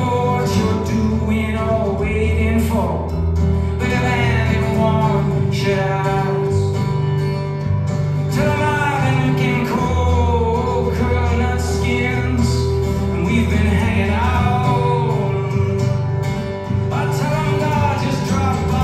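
A man singing over his own acoustic guitar in a live solo performance, the voice rising and falling in long sung phrases over sustained guitar chords.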